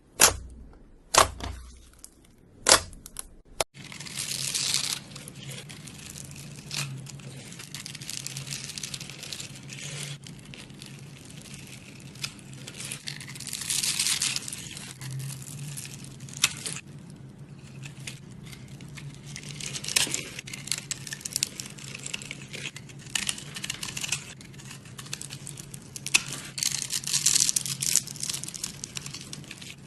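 Slime being squeezed and stretched by hand: a few sharp pops of trapped air in the first few seconds, then a long run of fine crackling and crinkling over a low steady hum.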